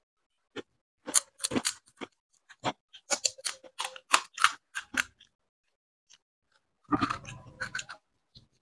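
Crisp fuchka (panipuri) shells cracking and crunching as they are broken open and eaten: a run of sharp, irregular crackles for a few seconds, a pause, then a denser burst of crunching about seven seconds in.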